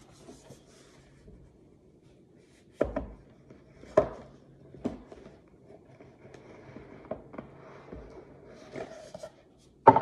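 Cardboard packaging handled on a wooden tabletop: rubbing and sliding, broken by several sharp knocks as the box is handled and set down, the loudest about four seconds in and near the end as the lid comes off.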